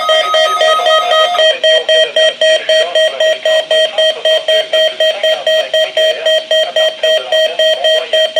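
Weather radio alert alarm beeping rapidly, about four beeps a second, triggered by a Weatheradio Canada weekly test broadcast. A steady warning tone from the broadcast sounds under the beeps and stops about a second and a half in.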